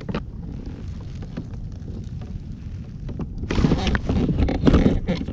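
Wind buffeting the action camera's microphone as a low rumble, growing louder and hissier from about three and a half seconds in.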